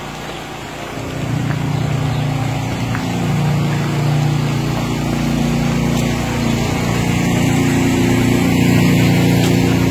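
An engine running steadily, getting louder about a second in and then holding.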